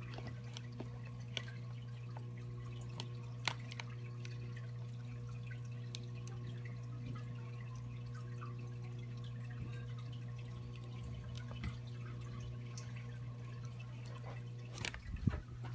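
Aquarium pump humming steadily, with occasional small drips and clicks of water. A short clatter of knocks comes near the end.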